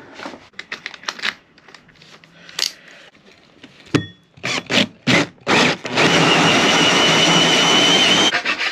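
A run of short scraping strokes on wood, then a power drill cutting into wooden cladding for about two seconds with a steady whine before stopping abruptly, boring a hole for a ceiling light.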